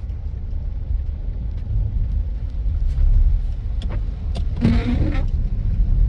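Car driving along a road, a steady low rumble of engine and tyres, with a short pitched sound about four and a half seconds in.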